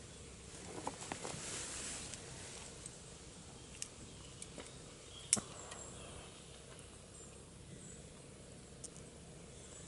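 Faint rustling of hands among leaves and the log in the first couple of seconds, then a few short sharp clicks, the loudest about five seconds in: a hand-held lighter being struck to light tinder at the base of a Swedish fire log.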